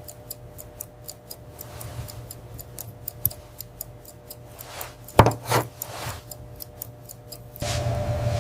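Light, regular clock-like ticking, several ticks a second. A few sweeping sounds rise and fall a little past halfway, the loudest about five seconds in.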